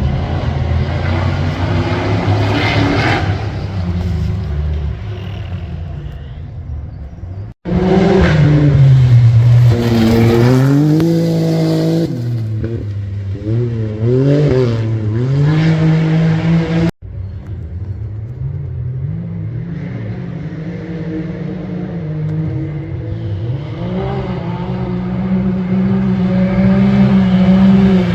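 Engine of a competition safari off-road racing vehicle, revving hard and changing pitch up and down over and over as it is driven. The sound breaks off suddenly twice.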